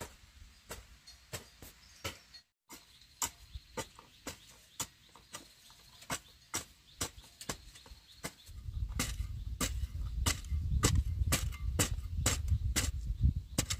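Metal hoe blades chopping into dry, clumpy soil in quick, uneven strokes, about two a second. A loud low rumble joins from a little past halfway.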